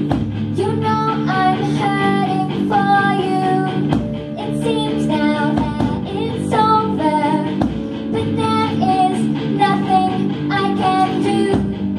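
Live rock band of school-age players: several girls singing the melody together over electric guitars and drums.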